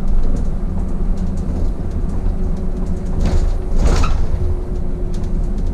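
City bus on the move, heard from the driver's cab: a steady engine and road rumble with a low hum, and a brief louder rushing swell about three to four seconds in.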